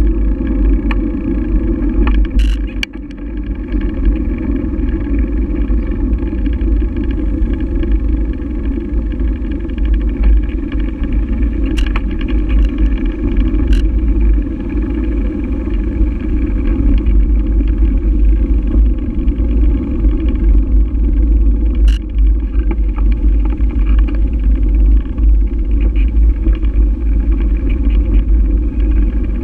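Steady low rumble of wind buffeting and road vibration on a bike-mounted GoPro while riding over pavement and paving stones. A few sharp clicks or knocks come through, around the first few seconds and again in the middle.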